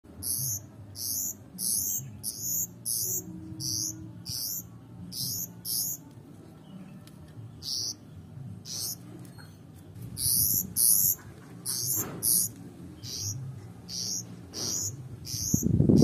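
Fledgling pied bushchat calling: short, very high chirps repeated about twice a second, with a brief pause midway.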